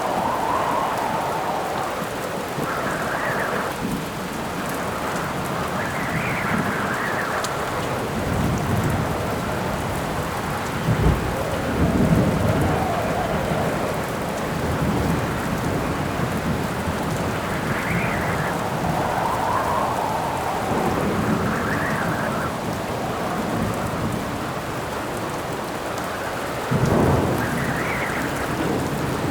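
A rain storm: steady rain under wind that howls in gusts, rising and falling in pitch every few seconds. Thunder rumbles about eleven seconds in and again near the end.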